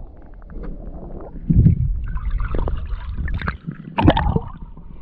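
Muffled water sloshing and gurgling heard through a camera held just under the surface of a river, with a steady low rumble and scattered clicks. It surges into louder splashes about a second and a half in and again about four seconds in.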